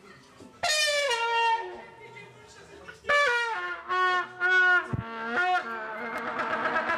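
A wind instrument blown in loud, horn-like blasts. A long note starts about half a second in and slides down at its end. A run of shorter blasts follows about three seconds in, and a held note sounds near the end.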